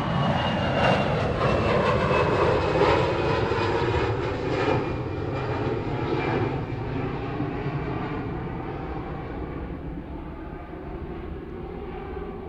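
Twin-engine Airbus A320-family airliner climbing away after takeoff. Its jet engine noise is loudest at first and fades steadily as it departs, with a whine that slides down in pitch.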